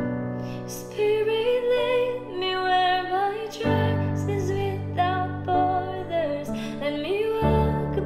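A woman singing a slow, tender melody over a keyboard accompaniment of held chords that change every few seconds; her voice enters about a second in.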